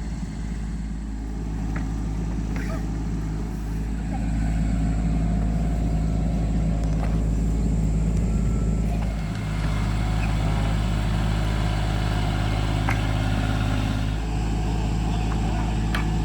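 Tractor engine running steadily, getting louder about four seconds in and holding there.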